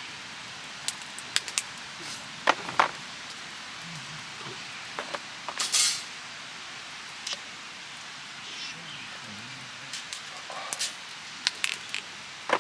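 Camp utensils and gear being handled: scattered clinks and knocks, with one longer hissing rustle about six seconds in, over a steady rush of river water.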